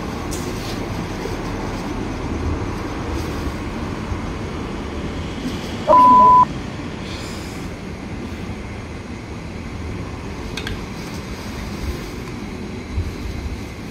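Steady road-traffic noise, with one loud, flat beep lasting about half a second about six seconds in, a censor bleep.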